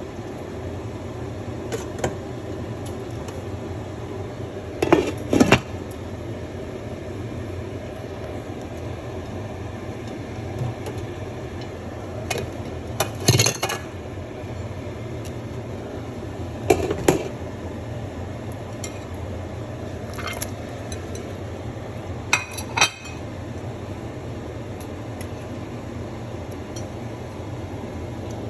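Cooking pot and metal utensils clinking and knocking now and then, about half a dozen short strikes, over a steady low hum.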